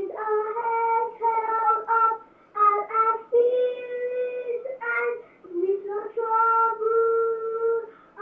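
Children singing a school anthem, a slow melody of long held notes in a high register; the words include "with no troubled look or sigh".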